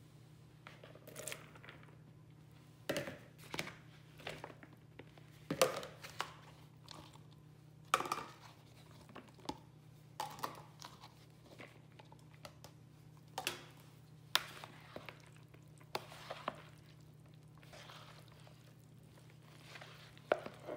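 Pasta-salad ingredients tipped from bowls and a colander into a plastic mixing bowl, then stirred with a spoon: irregular soft knocks, scrapes and rustling, over a steady low hum.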